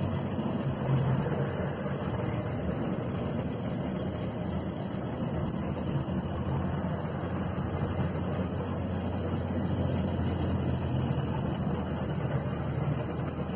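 Tracked armoured vehicles driving past in a column, their engines making a steady low drone that swells and eases slightly as they go by.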